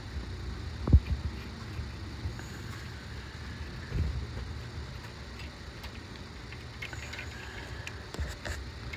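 A few knocks and small clicks from a claw pickup tool being worked in among the exhaust parts under a car, over a steady low hum. There is a sharp knock about a second in, a softer thump about four seconds in, and light clicks near the end.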